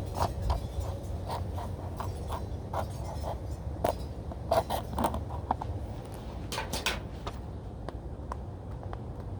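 Hands working at the plastic packaging of a DVD case: scattered crackles, scrapes and clicks, with a denser cluster about halfway through and another a couple of seconds later.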